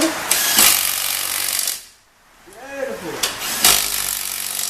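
Impact wrench hammering a wheel bolt tight on a BMW E36 hub, in two bursts: one of about a second and a half, and another starting near the end.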